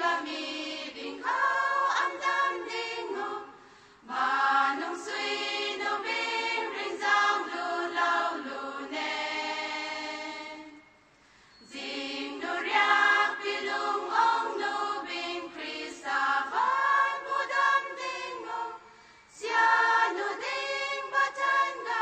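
A choir singing, in long held phrases with short breaks between them.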